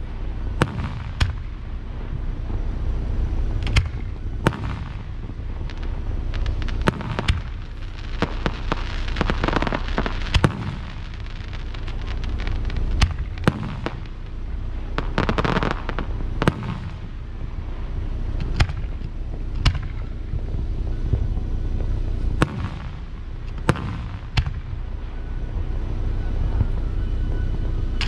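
Aerial firework shells launching and bursting: a string of sharp bangs at irregular intervals over a steady low rumble, with denser crackling stretches about a third and halfway through.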